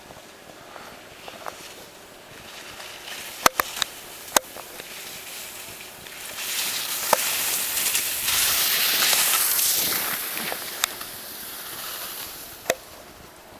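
Skis sliding over snow: a hiss that swells about six seconds in and fades near the end, with a few sharp clicks, two early and two late.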